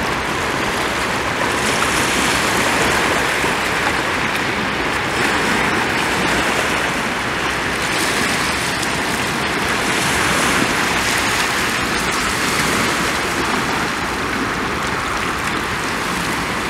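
Steady, even rushing noise of rain and wind, with no single sound standing out.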